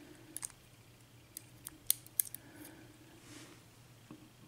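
Small, sharp metal clicks of steel tweezers picking the upper pins out of a euro lock cylinder and setting them down on a pin tray, a few separate clicks mostly in the first half.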